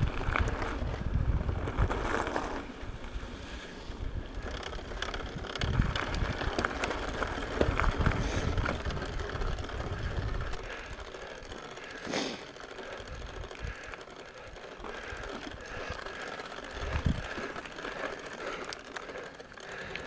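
Mountain bike riding over a dirt and gravel trail: tyres crunching on the loose surface, with the chain and drivetrain ticking and rattling, a drivetrain the rider says is rubbing a little after a makeshift trail fix to the shifting. Wind rumbles on the microphone in the first half and eases about halfway, and a sharp knock comes about twelve seconds in.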